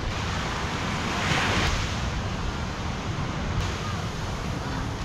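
Sea surf and wind on the microphone: a steady rushing noise that swells briefly about a second in.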